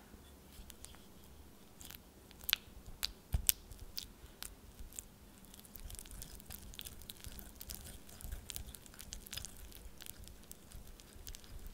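A whisk clicking against a glass mixing bowl as it breaks up and beats a block of butter to soften it. A few sharp taps come about two to four seconds in, then a quicker, steadier run of small clicks and soft squishing as the butter is worked smooth.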